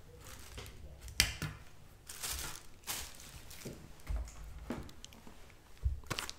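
Groceries being handled on a table: a sharp knock, a brief rustle of packaging and a few soft thumps as a cardboard carton of frozen vegetables is picked up.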